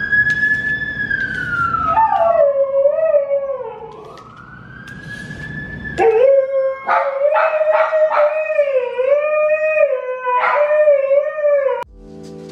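A dog howling along with a siren. The siren wails up and down in smooth glides, and from about two seconds in the dog joins with long wavering howls that grow louder in the second half and stop abruptly near the end.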